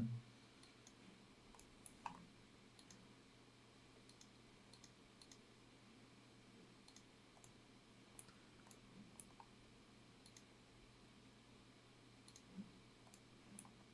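Faint computer mouse clicks, scattered at irregular intervals, over near-silent room tone.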